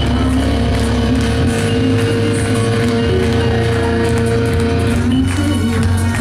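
Live post-hardcore band playing loud, dense rock with bass guitar and drums, a long held note dropping out about five seconds in.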